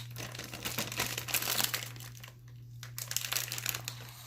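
Crinkly plastic being handled and crumpled close by, a dense run of crackles that pauses briefly about two seconds in and then resumes.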